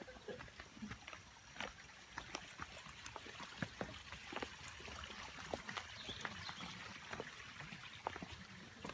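Running water of a mountain stream, a steady hiss, with scattered light clicks and knocks over it.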